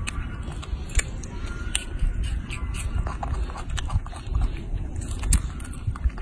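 Baby macaque biting into and chewing a ripe tomato: a few sharp, wet clicks and smacks over a steady low rumble.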